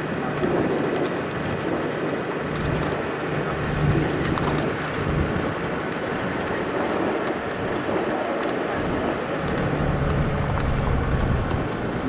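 Safari vehicle's engine running, heard from inside the cabin as a steady low rumble with small scattered clicks and rattles.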